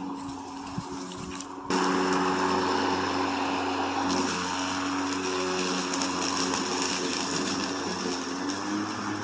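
Lawn mower running steadily, with a steady engine hum that gets suddenly louder and noisier about a second and a half in.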